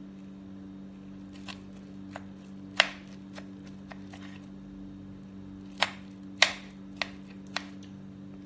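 Kitchen knife cutting through a slab of steamed egg, the blade knocking against the ceramic plate in a string of sharp clicks, loudest about three and six and a half seconds in. A steady low hum runs underneath.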